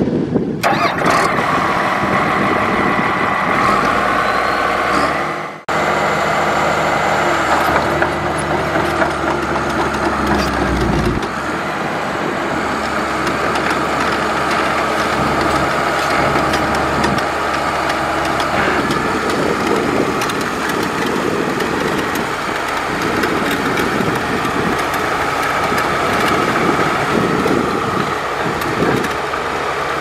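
Diesel engine of a heavy earthmoving machine working gravel, running loudly and steadily, with its pitch shifting as the load changes. There are two abrupt breaks in the sound, about half a second and five and a half seconds in.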